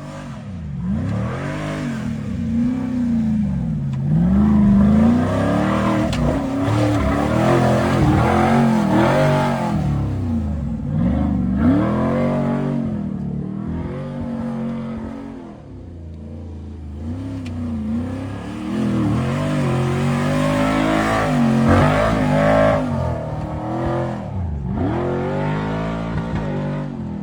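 Off-road 4x4 engine revving hard over and over, its pitch climbing and dropping every second or two, with a brief lull about halfway through.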